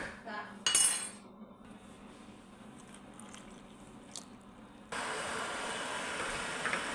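Glass clinks as vanilla flavouring is poured into the batter, with a short bright clatter about a second in. About five seconds in, a steady rushing noise starts suddenly and keeps going.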